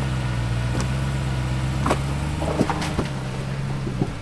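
Jeep Wrangler's engine running steadily at low crawling revs, with about half a dozen sharp knocks and clicks scattered from about a second in to near the end.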